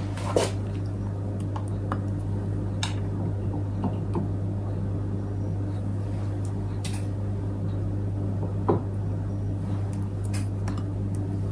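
A steady low hum with a few light clicks and taps as raisins are scattered onto porridge in a ceramic bowl and the spoon in it is handled.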